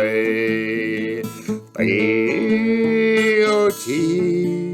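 A voice singing a slow Russian romance in long held notes, with guitar accompaniment. A brief gap about a second and a half in comes before the next sung phrase.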